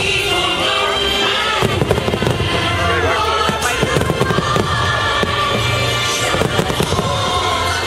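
Aerial fireworks shells bursting with many sharp bangs and crackles in quick succession, over the show's music soundtrack.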